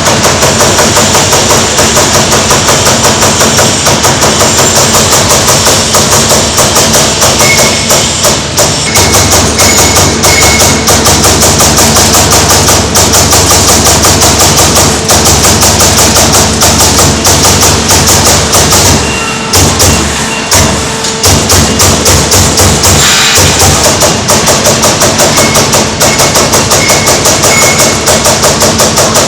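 CNC single-head sheet-metal punching machine punching steel sheet in a fast run of sharp repeated strokes, with brief breaks about two-thirds of the way through.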